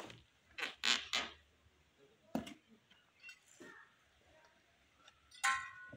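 Hand tools clinking and scraping on concrete and steel reinforcing bar: a quick run of three sharp knocks about a second in, another at about two and a half seconds, and a louder, ringing clink near the end.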